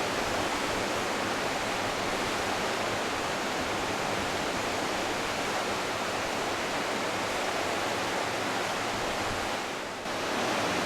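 Steady rushing of a large river in full flood, a dense, even wash of water noise. It dips briefly near the end, then comes back at the same level.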